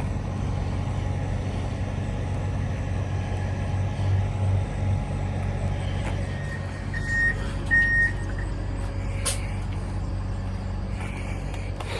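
Heavy truck engine running steadily, with two short high beeps about seven seconds in and a brief sharp sound about two seconds later.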